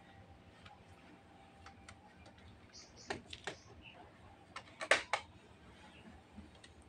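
A few sharp clicks and taps over a faint, quiet background: a pair about three seconds in, then a tighter cluster around five seconds in that is the loudest.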